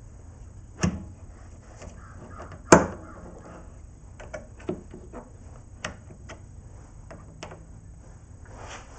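Metal knocks and clicks as steel parts are set and adjusted by hand in a machine vise on a benchtop milling machine: two louder knocks about one and three seconds in, then a run of lighter taps.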